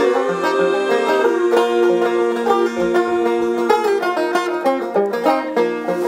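Background music: a plucked-string tune that runs on without a break.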